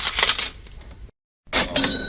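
Cash register sound effect: coins clattering and jingling, dying away about half a second in, then a moment of dead silence before the effect starts over with fresh clatter and the register's bell ringing near the end.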